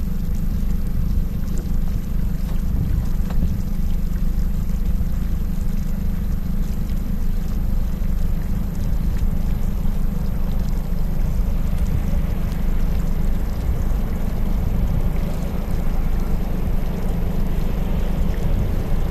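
Steady wind rumble on the microphone with the engines and wash of several motorboats under way. About twelve seconds in, the boats' engine and water noise comes up and keeps growing as they speed out.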